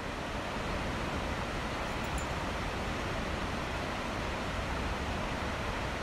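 Takakkaw Falls, a waterfall about 384 m high, with a steady, dense rush of falling water that does not change.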